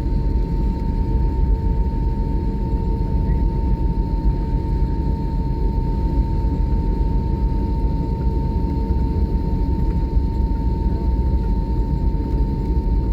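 Airliner cabin noise from the jet engines running at idle: a steady low rumble with a constant high whine.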